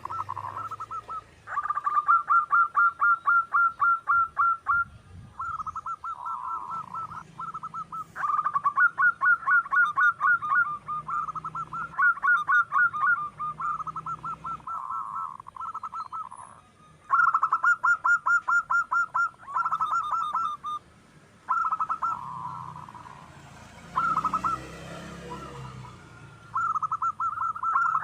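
Zebra dove (perkutut) calling: rapid strings of staccato cooing notes, about eight a second, in phrases of one to four seconds with short pauses between.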